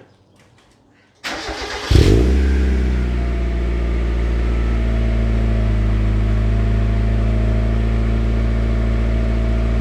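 1993 Mazda Miata's 1.6-litre four-cylinder engine through a freshly fitted MagnaFlow cat-back exhaust: the starter cranks briefly, the engine catches about two seconds in with a short rev flare, then settles into a steady idle.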